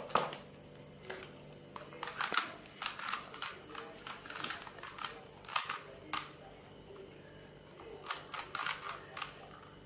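Plastic Rubik's cube being twisted by hand: runs of quick clicking and clacking as its layers turn, with short pauses between runs.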